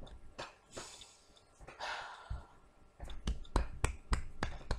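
A person's breathy sigh about one to two seconds in, followed in the last two seconds by a run of quick clicks and taps with low thumps.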